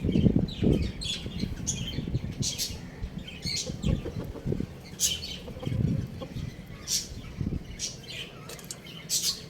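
Birds giving short, high chirps and squawks, about one a second, over low rustling and thuds that are loudest near the start.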